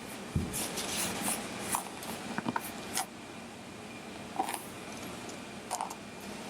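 Soft rustling and scattered light clicks from hands working on the patient's back and body shifting on a treatment table, with no distinct joint crack.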